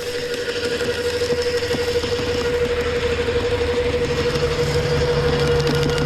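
Wood chipper running steadily, its motor giving a constant whine over a low rumble, with a deeper tone joining about two-thirds of the way in.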